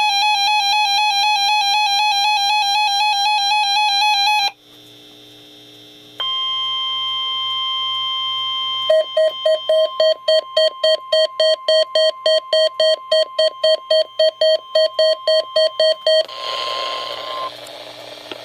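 Electronic alert tones from a NOAA Weather Radio test broadcast. A warbling electronic tone lasts about four seconds and is followed by a brief quieter gap. A steady high tone then begins and is joined about nine seconds in by fast beeping, three or four beeps a second, ending in a short stretch of radio noise.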